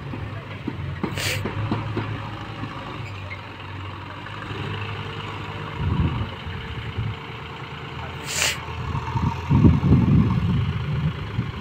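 Diesel tractor engine running while its hydraulic tipping trailer lifts and tips a load of earth, with louder low surges about six seconds in and again near ten seconds. Two brief sharp high noises stand out, one about a second in and one about eight seconds in.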